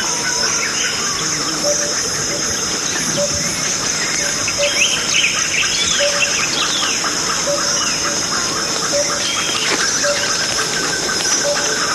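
Rainforest ambience: a steady high insect drone with birds calling, one repeating a short note about every second and a quarter, and a run of rising and falling whistled calls in the middle.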